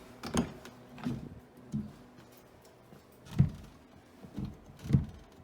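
A handful of short, soft thumps and knocks at irregular spacing, the two loudest about three and a half and five seconds in.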